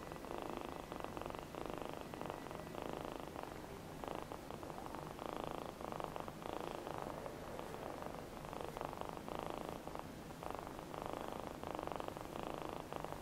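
Young kitten purring steadily, the purr rising and falling in an even rhythm with its breathing, as a soft toothbrush strokes its chest.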